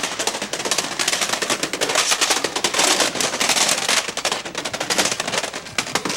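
A rapid, dense, unbroken string of sharp cracks and pops, many each second, like a long run of small explosive reports.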